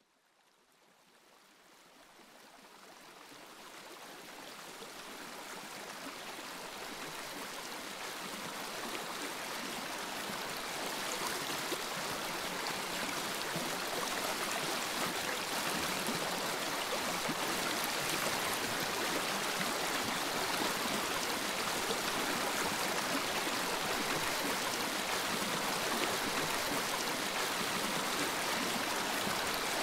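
Steady rushing of flowing water with no speech. It fades in from silence over about the first ten seconds, then holds level.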